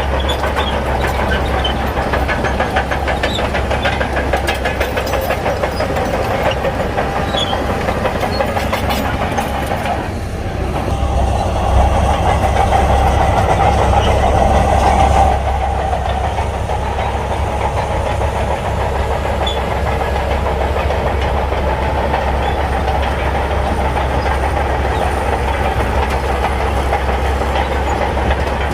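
Shantui crawler bulldozer's diesel engine running steadily with the rattle and clank of its steel tracks as it works sand. The engine dips briefly about ten seconds in, then runs louder for about four seconds before settling back.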